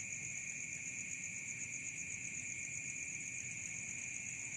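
Night insects, crickets, trilling without a break: a high, even buzz made of very fast pulses.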